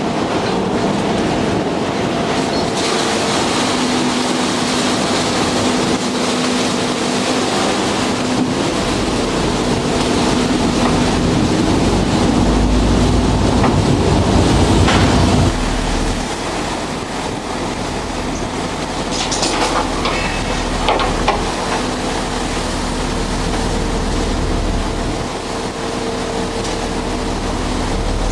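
Beam trawler's machinery running aboard: a steady engine drone with a constant hum and a continuous rattle, with a few sharp knocks about 15 and 20 seconds in.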